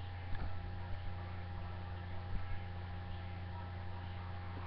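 Steady low electrical hum, with a couple of faint taps.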